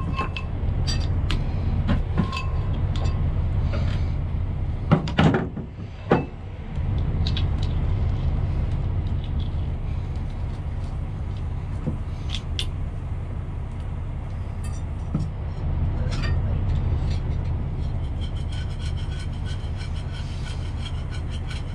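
Steady low rumble of the concrete pump truck's idling engine, with a few sharp metal clanks and knocks about five to six seconds in.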